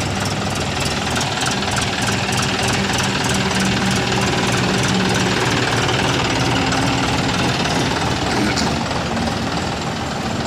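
A John Deere tractor's diesel engine running steadily with a low, even hum while the tractor drives off.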